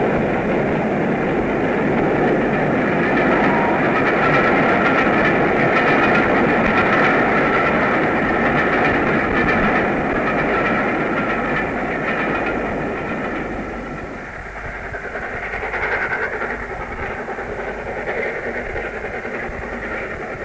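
Steam train running on the rails, a steady, dense rumble and clatter from an old tape recording, dull with no treble. It eases off somewhat about two-thirds of the way through.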